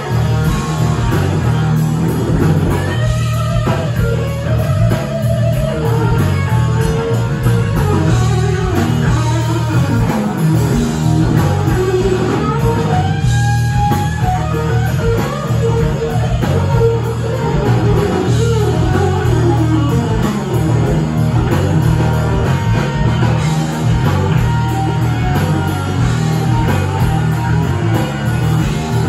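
Live blues-rock trio playing loud through amplifiers: electric guitar lead over electric bass and a drum kit.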